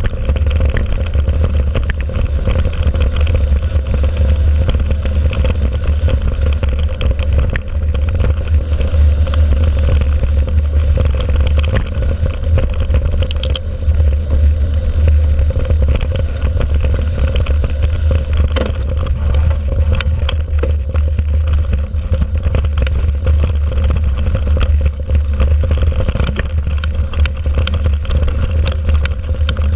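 Steady, loud wind rumble on the microphone of a handlebar-mounted camera as a mountain bike rides a rough dirt track. Frequent rattles and clicks come from the bike and the camera mount jolting over the ground.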